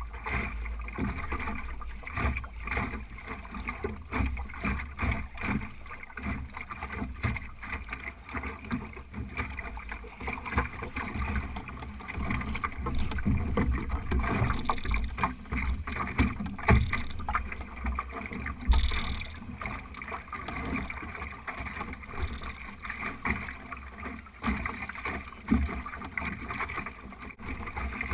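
Water slapping and rushing along the hull of an Optimist sailing dinghy under way, with wind buffeting the microphone and irregular knocks from the hull and rigging.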